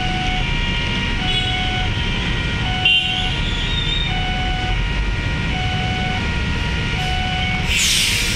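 Railway level-crossing warning alarm sounding a repeating electronic tone pattern, about once every second and a half, over the low hum of idling traffic. A short loud blip comes about three seconds in, and a hiss near the end.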